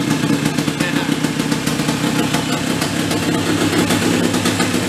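Snowmobile engine fitted in a golf cart, running steadily with a fast, even pulse.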